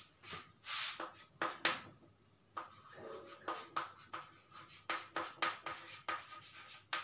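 Chalk writing on a chalkboard: a string of short, scratchy strokes and taps as a word is written.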